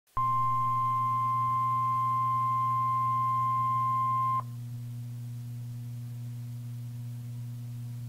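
NOAA Weather Radio 1050 Hz warning alarm tone, the signal that a warning broadcast follows. It sounds as one steady high beep held for about four seconds and then cuts off, leaving only a low, steady radio hum.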